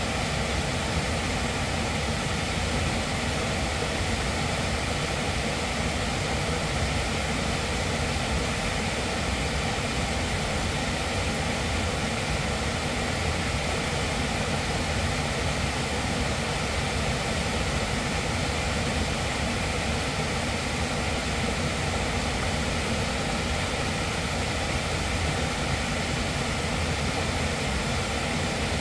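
Small waterfall cascading over rocks: a steady, unbroken rushing of water with a low rumble beneath it.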